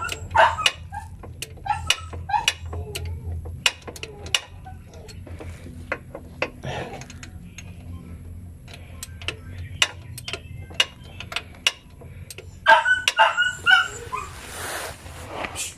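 A 3/8-inch drive ratchet wrench clicks in short, irregular strokes as it loosens a transmission plug bolt. A dog barks at the start, and again in a quick run of four or five barks about thirteen seconds in, the loudest sounds here.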